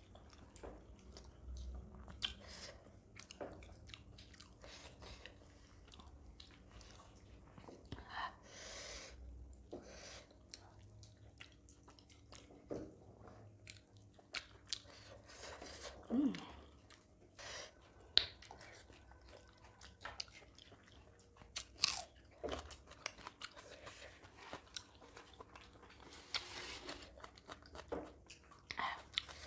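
Close-miked chewing and biting of a meal of millet dhido and chicken curry eaten by hand, with wet mouth smacks and scattered short crunches.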